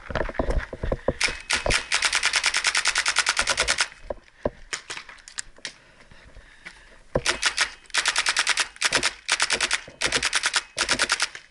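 Paintball marker firing in rapid strings of shots, about ten a second: one long string of nearly three seconds early on, then a series of short bursts in the second half.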